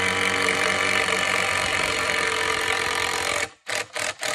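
Power drill driving a screw into a wooden framing board, running steadily at one pitch, then stopping and giving four short bursts near the end.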